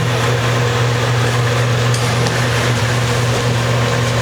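Electric fan running, a steady rush of air with a constant hum.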